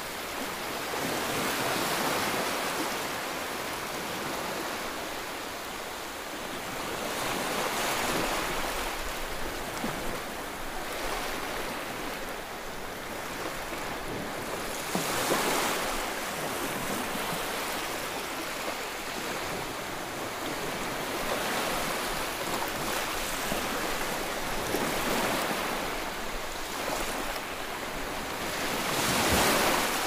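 Rough sea surf breaking and surging against a concrete seawall: a continuous rush of water that swells louder every few seconds as each wave comes in, loudest near the end.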